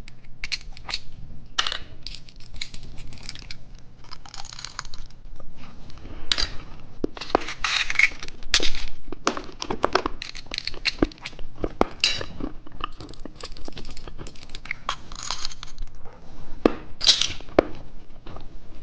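Close-miked crinkling and tearing of candy packaging, mixed with irregular sharp crunching and chewing of candy.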